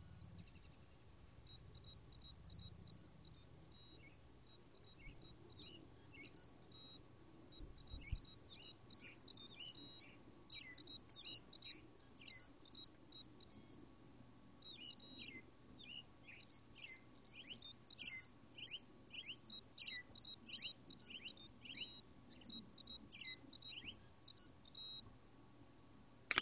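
Lorus musical Mickey Mouse watch playing its melody as faint, high electronic beeps in quick runs. From about five seconds in, many short, high, falling squeaks are mixed in.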